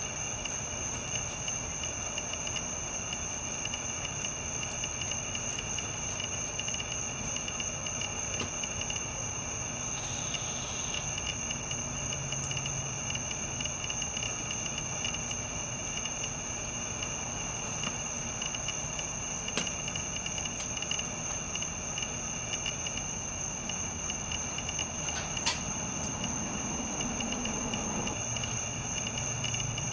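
Steady chorus of crickets trilling: a constant high-pitched ring with a second, lower ring beneath it, and a faint click near the end.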